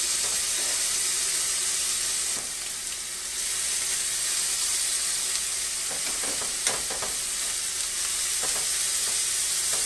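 Chicken thighs, turkey burgers and onion slices sizzling steadily on the hot grid of a Philips infrared indoor grill, dipping briefly about two and a half seconds in. A few light clicks of metal tongs turning the food come about two-thirds of the way through.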